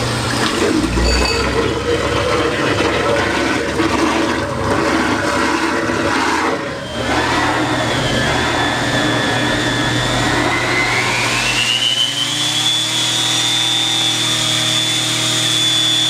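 Tap water running into a kitchen sink and down the drain while the garbage disposal runs with a steady low motor hum. About ten seconds in, a whistling tone rises in pitch and then holds steady over the rushing water.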